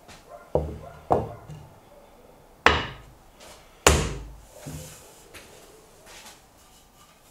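Sharp wooden knocks as oak bench parts are set down and pressed together on a wooden workbench: four loud knocks in the first four seconds, then a few lighter taps.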